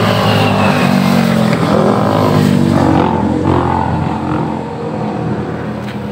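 Motorcycle engines running as they pass close by on the road, loudest over the first three seconds and then easing off.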